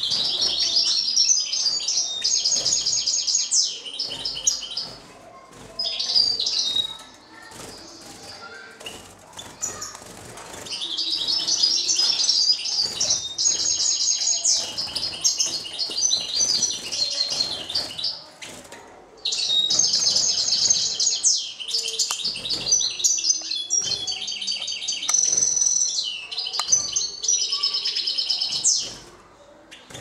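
Caged European goldfinch singing: long runs of fast, high twittering song in several phrases separated by short breaks.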